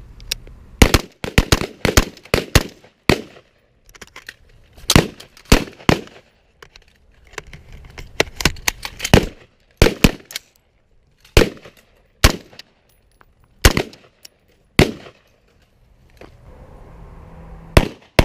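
Rifle shots fired on a range, coming irregularly in clusters and overlapping pairs as from several shooters. A fast string of shots starts near the end.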